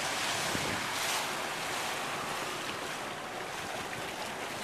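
Water rushing and splashing past the hull of a small motorboat under way on a canal, with wind buffeting the microphone.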